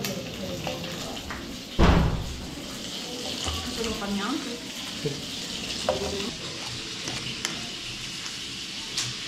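Food frying and sizzling in a pan, a steady hiss, with a loud thump about two seconds in and a few lighter clicks.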